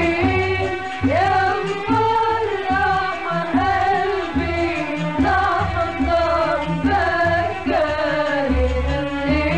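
A song: a voice singing long, sliding phrases over a steady low drum beat.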